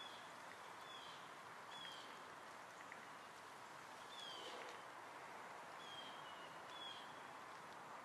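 Faint outdoor hiss with a small bird's short falling chirps, about six of them, spaced a second or two apart.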